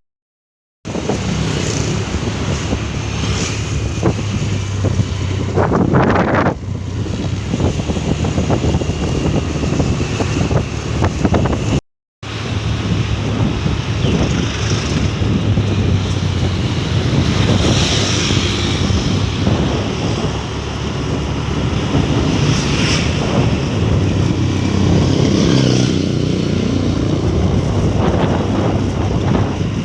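Road traffic: a vehicle engine's steady hum under wind buffeting the microphone, with other vehicles passing, one loudly about six seconds in. The sound cuts out briefly twice, at the start and about twelve seconds in.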